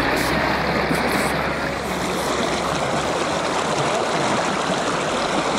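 Steady rush of flowing river water, with a low rumble underneath that fades out about halfway through.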